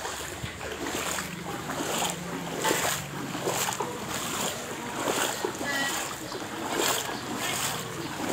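Feet wading through shin-deep floodwater, splashing and sloshing in a steady walking rhythm, a little more than one step a second.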